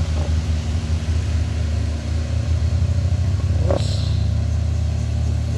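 Diesel engine of a loaded Isuzu light truck pulling up a steep climb: a steady low rumble, with a brief sharp sound near four seconds in.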